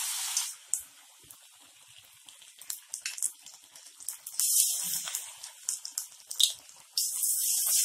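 Hot oil sizzling in a kadai as batter-coated cauliflower florets are dropped in one at a time. The sizzle flares up as each floret goes in, about four and a half seconds in and again near the end, then settles back to a low bubbling.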